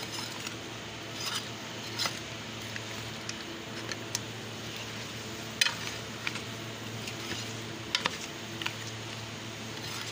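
Metal spoon scraping and clinking against a stainless steel pan while stirring chicken feet in thick masala. The scrapes come irregularly, with a few sharper clinks, over a steady low hum.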